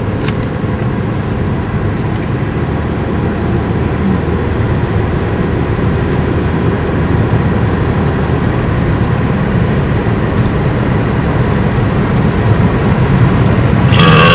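Road and engine noise heard inside a moving car's cabin: a steady rumble and tyre roar that grows a little louder toward the end.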